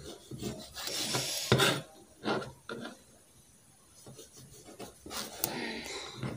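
Kitchen knife cutting tomatoes on a plastic cutting board: scraping strokes and knocks of the blade against the board, the sharpest knock about a second and a half in.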